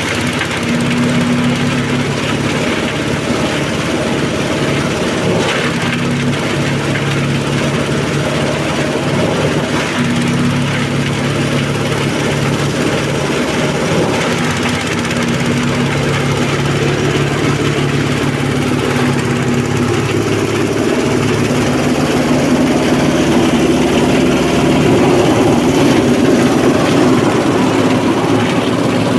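Diesel engine of a multipurpose shredder-grinder (grass and compost chopper) running steadily under power, with a steady hum and growing somewhat louder in the last third.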